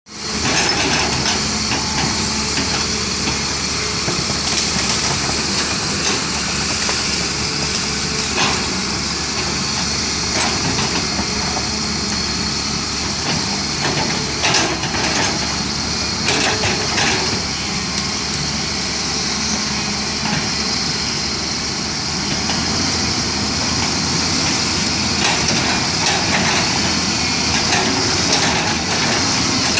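Diesel engine of heavy digging machinery running steadily under load, with a few sharp knocks and clanks from the digging gear.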